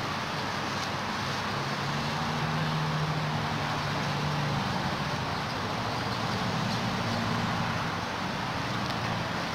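Steady road traffic noise, with the low hum of a motor vehicle's engine swelling twice as vehicles pass.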